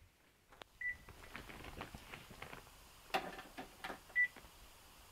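Cordless phone handset: a short beep about a second in, then a few clicks and knocks as the handset is set down into its charging base, and a second short beep just after it seats.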